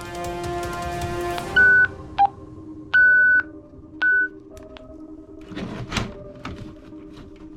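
Music playing, stopping about a second and a half in, followed by four short electronic beeps and then a few clicks and knocks.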